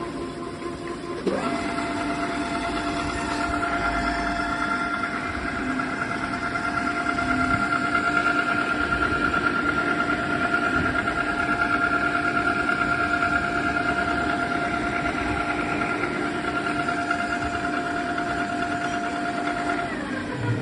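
Donau pillar drill's electric motor and spindle running with a steady whine, stepping up in pitch and level about a second in. Near the end it is switched off and the whine falls away as the spindle spins down.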